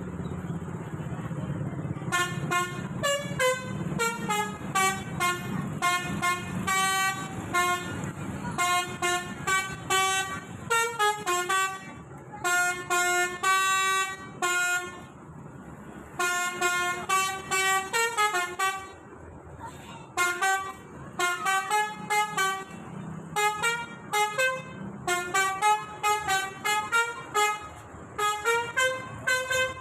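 Telolet horn: a vehicle's set of multi-tone musical horns tooting quick stepping melodies, in repeated phrases a few seconds long with short pauses between, starting about two seconds in. A low engine rumble sits under the first part.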